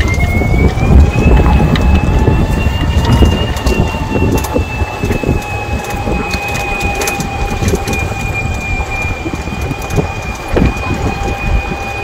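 Wind buffeting the microphone, with the whine of an electric golf cart's motor that rises in pitch as the cart speeds up in the first second, then holds steady.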